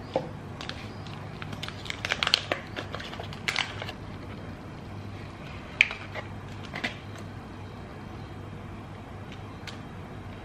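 Foil-lined butter wrapper crinkling as it is pulled open, in two clusters in the first few seconds, then a few sharp taps of a knife cutting the butter block on the board about midway. A faint steady low hum runs underneath.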